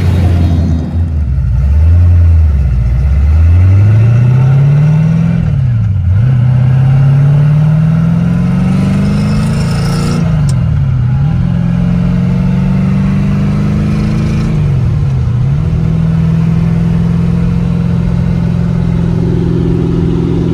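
1965 Griffith 400's Ford 289 V8 accelerating through the gears: the engine note climbs and drops back three times as it shifts up, about five seconds apart, then settles into a steady cruise.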